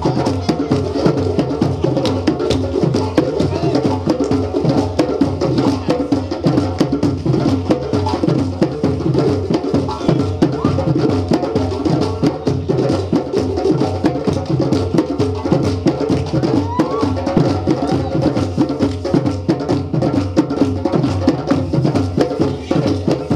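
West African djembe drum ensemble playing a traditional Malinke rhythm: fast, dense hand strikes that keep going without a break.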